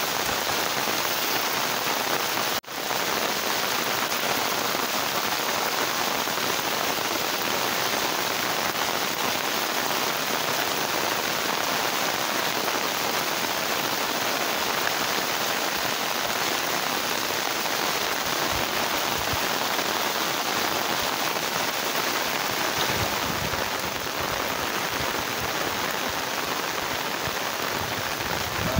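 Heavy rain falling steadily on trees and puddled ground, a dense, even hiss. The sound cuts out for an instant about two and a half seconds in, and a few low rumbles come in during the second half.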